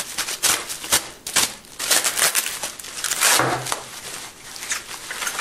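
Packing material rustling and crinkling with quick irregular crackles as a heavily wrapped glass bottle is pulled out of a parcel.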